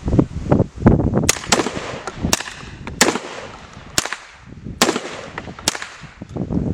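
A string of gunshots, about seven sharp cracks at uneven intervals, from a .22 and a 12-gauge shotgun fired alternately to mimic a second-degree type 1 (Wenckebach) heart block rhythm.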